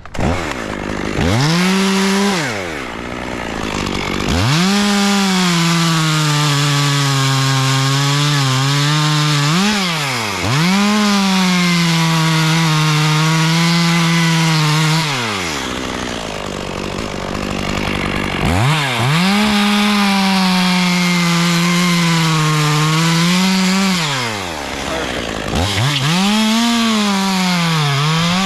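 Two-stroke chainsaw revved to full throttle and cutting into wood, its pitch sagging under load through long cuts. It drops back to idle twice and is revved up again each time.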